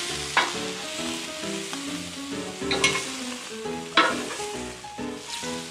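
Zucchini sizzling on a propane grill's porcelain-enamelled cast iron grates as the spears are moved around, with a few sharp metallic clicks against the grate, over light background music.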